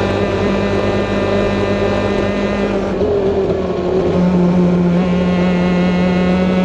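Two-stroke Honda superkart engines running hard at racing speed, a steady high-revving note. About three seconds in the tone drops and dulls, then it settles and carries on steadily.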